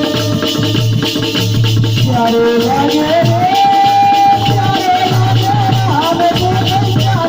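Indian folk music: a steady drum rhythm with rattling percussion. About two seconds in, a held melodic line enters and wavers in pitch.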